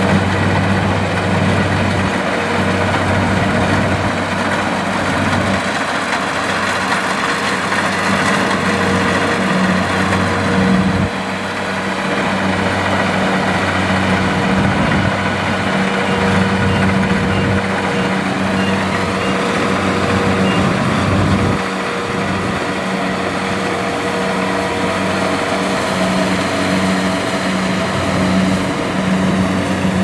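Kubota DC70 rice combine harvester running steadily under load as it cuts and threshes rice: a steady diesel engine hum together with the mechanical noise of its cutting and threshing gear.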